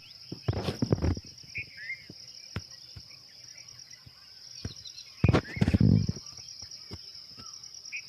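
Outdoor nature ambience: a steady high-pitched insect trill, such as crickets, runs throughout, with short bird chirps scattered over it. Twice, once near the start and once just past the middle, a loud burst of noise lasting about a second stands out.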